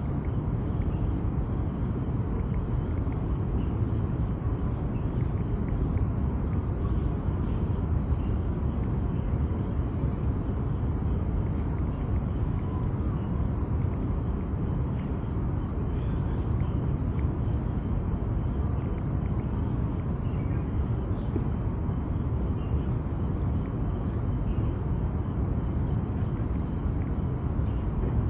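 Steady high-pitched chorus of insects chirring without a break, over a continuous low rumbling background noise.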